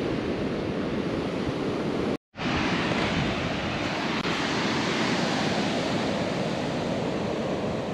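Rough ocean surf breaking and washing up a sandy beach, a steady rushing wash with some wind on the microphone. The sound drops out completely for a moment about two seconds in, then carries on.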